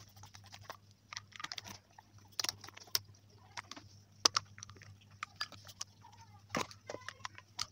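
Screwdriver backing out the small screws of a throttle body's plastic cover: irregular small clicks and scrapes of the tip on the screw heads, with a few sharper ticks, over a faint steady hum.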